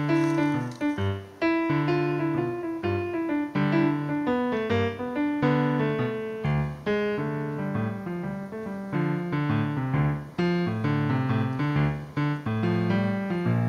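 Piano music: struck notes and chords, each ringing and fading, following one another at a moderate pace.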